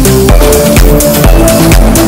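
Electronic dance music with a steady bass beat and a repeating synth melody.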